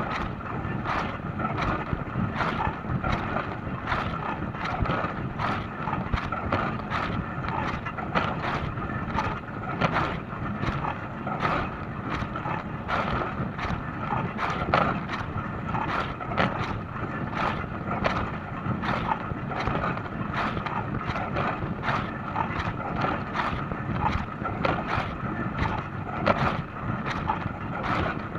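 Dishwasher running a wash cycle: water spraying against the dishes and the tub in a steady rush, full of frequent, irregular little splashes, with a steady whine underneath.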